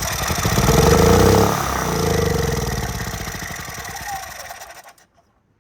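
Honda EU3000is inverter generator's single-cylinder engine running just after a start on choke, its choke lever freshly freed after sticking and leaving the engine running very rich. The engine speed rises, then drops about a second and a half in, and the engine runs on, getting quieter, until it stops about five seconds in.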